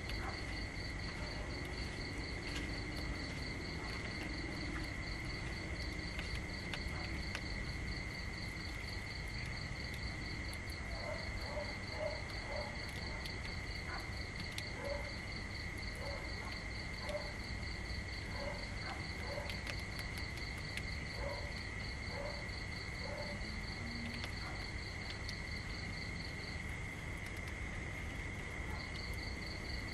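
Insects trilling: a steady high drone with a faster pulsing trill above it, which breaks off for a couple of seconds near the end. A scattering of faint short chirps comes in the middle, over a low steady outdoor rumble.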